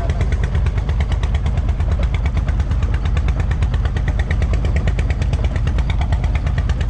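A fishing boat's engine running steadily, loud and low, with a fast, even knocking beat.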